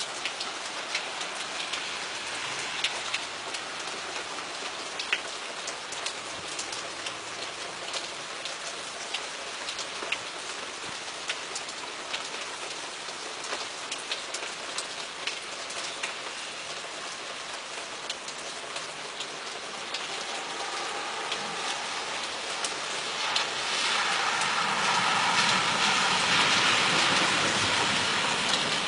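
Rain falling steadily during a thunderstorm, with many sharp drop impacts. About twenty seconds in, a louder rushing sound builds and stays strongest for the last few seconds.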